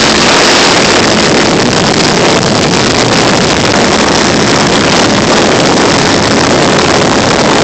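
Steady, loud rush of wind and the engine-and-propeller noise of a small aircraft in flight, picked up by a camera carried aboard.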